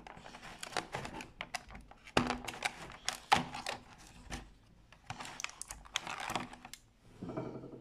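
Fingers scratching, tapping and tearing at the cardboard door of a chocolate advent calendar: a rapid, irregular run of small clicks and scrapes.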